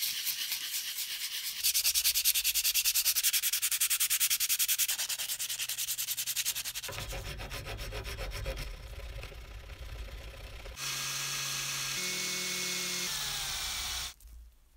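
Small metal part rubbed fast back and forth on abrasive for several seconds, then a hand file scraping across it in a vise. About eleven seconds in, an electric drill runs steadily into the part for about three seconds and then stops.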